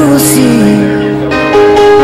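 A song laid over the footage: a singer's voice gliding over steady held chords, the voice breaking off about a second in while the chords go on.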